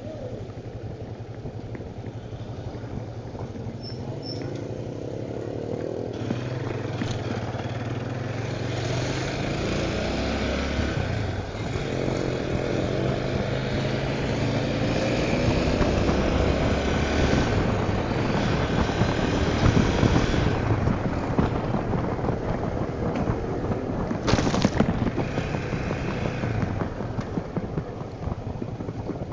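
Honda Tornado 250 single-cylinder four-stroke motorcycle engine running while under way. Its note steps up and down several times and grows louder through the middle. A brief, sharp hiss comes about 24 seconds in.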